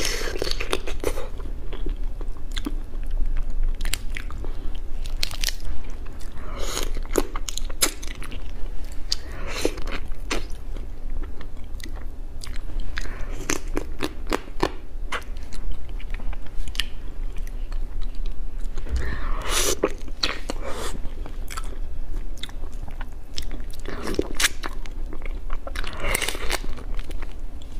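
Spicy crab being eaten: biting, chewing and crunching, with many irregular sharp clicks throughout.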